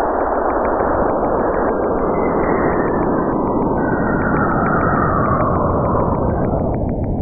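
Cassini's Radio and Plasma Wave Science recording of plasma waves passing between Saturn and its moon Enceladus, converted into sound: a dense, steady whooshing hiss. A fainter tone slides slowly downward through it, with faint regular ticks about four to five a second.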